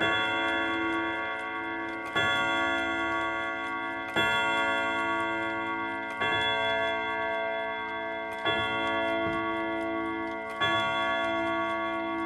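A slow chime melody: a ringing struck note or chord about every two seconds, each one sounding on as it fades until the next strike.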